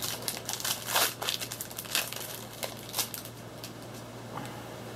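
Trading cards being handled: a run of crinkling rustles and light clicks, loudest about a second in, dying away after about three seconds.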